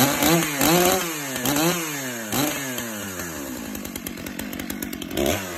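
Stihl MS661C two-stroke chainsaw running and revved again and again, its engine note climbing and dropping back in quick throttle blips.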